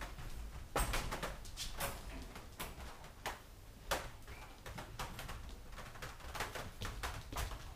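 Weimaraner puppies moving about in a wire dog crate: irregular clicks, knocks and rattles, several a second, over a low rumble.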